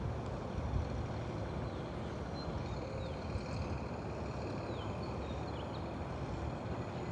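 Recycling truck's engine running steadily, a low even rumble, with a few faint high chirps over it.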